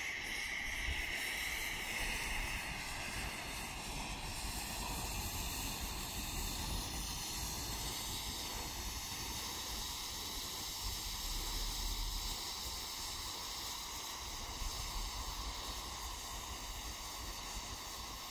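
Homemade smoke grenade burning on the ground, giving off a steady hiss as it pours out thick white smoke, slightly stronger in the first few seconds.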